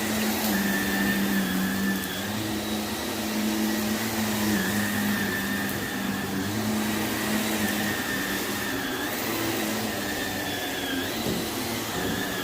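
Vacuum cleaner running steadily over carpet, picking up loose debris; its motor whine dips slightly in pitch a few times as the load changes.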